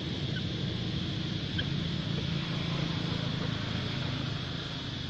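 Steady outdoor background noise: a low rumble under a constant high-pitched hum, with a couple of faint short chirps about half a second and a second and a half in.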